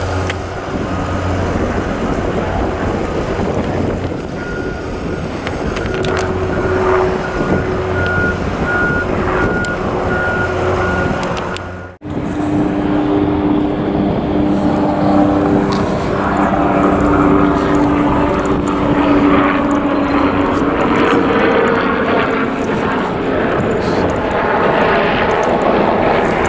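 Steady engine drone over outdoor background noise, with an abrupt break about twelve seconds in.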